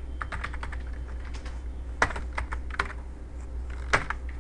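Typing on a computer keyboard: a run of keystrokes, with two sharper, louder clicks about two and four seconds in, over a steady low hum.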